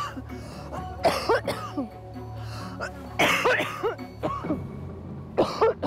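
A woman's chronic cough: several short, harsh coughing fits in a row, over background music. It is the persistent cough she has had for nearly nine years.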